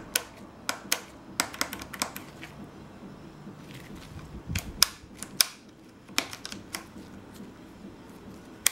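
Plastic handlebar switches on a KTM 350 EXC-F clicking as they are pressed and flicked over and over: the horn button and the turn-signal switch. The clicks are sharp and irregular, some in quick pairs, with no horn sounding.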